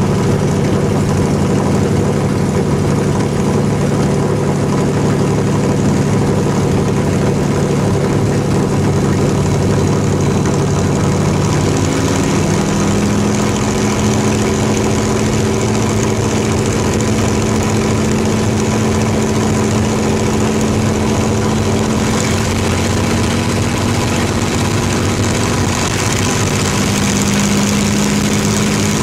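Propeller-driven P-51D Mustang's V-12 engine running steadily near idle. About twelve seconds in, its pitch steps up a little and holds there.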